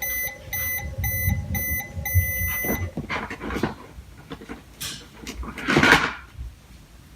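Toy microwave beeping: a run of short electronic beeps ending in one longer beep, the signal that the cooking cycle is done. After that come plastic handling and clattering sounds, the loudest a brief clatter about six seconds in.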